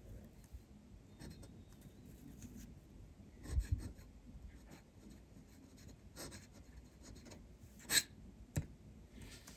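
Graf von Faber-Castell Classic fountain pen's nib scratching softly across paper in calligraphy strokes, with a few louder taps and clicks: the loudest a little over a third of the way in, and two sharp clicks near the end.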